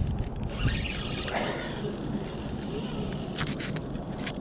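Fishing reel's drag clicking as a hooked salmon runs and pulls line off, over a steady low rumble.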